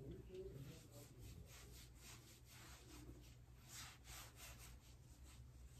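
Faint, soft swishing of fingers rubbing face cream into the skin of the face and neck, irregular strokes a few times a second, over a low steady hum.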